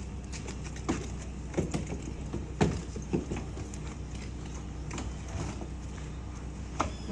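Bags and boxes being shifted and knocked about in a car boot, with several thumps and rustles, over the steady hum of the car's idling engine.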